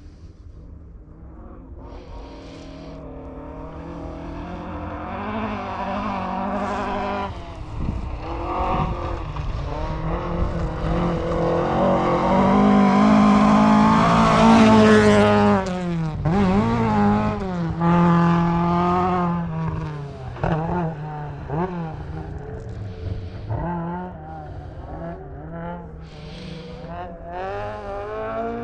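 Rally car coming through the stage: its engine revs up and down through repeated gear changes, growing louder to a peak about halfway, dropping in pitch as it passes, then revving on as it pulls away and fades.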